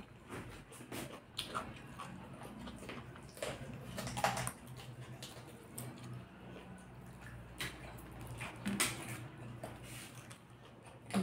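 Eating sounds close to the microphone: wet chewing and slurping of chow mein noodles, with irregular clicks and scrapes from a fork working the noodles on a foil-lined plate.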